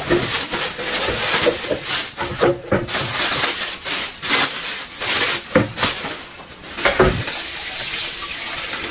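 Dishes and cooking utensils clattering: a run of irregular knocks and clinks.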